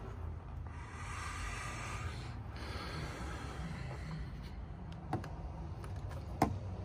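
Hands handling small plastic devices: a rustling, rubbing noise for a few seconds, then two sharp clicks, the second the louder, as the plastic camera wand is picked up and the phone is handled.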